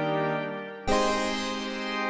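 Waldorf Quantum synthesizer, on its classic analog synth engine, playing held chords: one chord fades, and just under a second in a new, bright chord strikes sharply and sustains.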